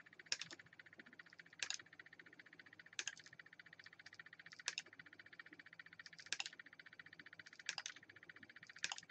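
Small hobby side cutters snipping pieces off a model brick strip: seven sharp snips, one about every second and a half, over a faint steady hum.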